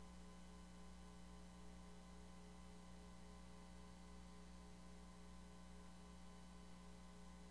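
Near silence with a steady electrical hum that does not change.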